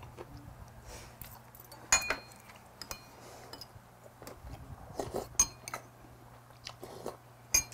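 Metal spoon and chopsticks clinking against ceramic bowls while eating: a handful of sharp clinks, some with a brief ring.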